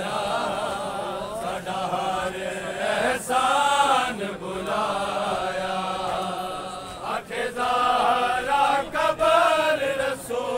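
Men's voices chanting a vain, a Shia mourning lament for Hazrat Fatima, in long, wavering held lines, with a few sharp knocks here and there.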